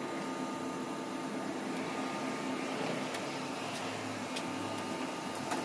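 Steady whirring hum of a running machine, with a few faint light clicks.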